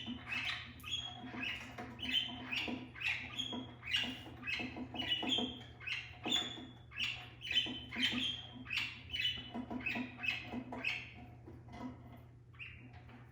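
Several budgerigars chattering in their cage: a busy run of short chirps and warbles, several a second, thinning out near the end, over a steady low hum.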